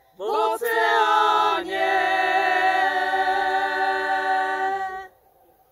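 A small group of voices singing a cappella in harmony; the voices slide into the phrase, then hold one long chord that stops about five seconds in.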